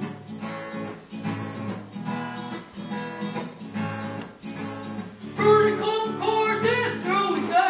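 Acoustic guitar strummed in a steady rhythm as a song's introduction. A voice starts singing over it about five and a half seconds in and is louder than the guitar.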